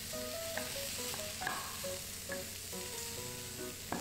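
Pork belly pieces sizzling in hot oil in a frying pan as they are browned, stirred with a wooden spatula that scrapes the pan a few times.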